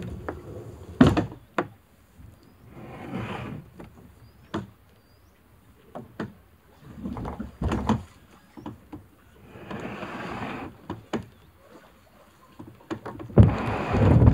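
Kayak moving against a wooden jetty: several sharp knocks of the hull and paddle on the timber, and between them a few short swishes of paddle strokes in the water. The loudest swish comes near the end.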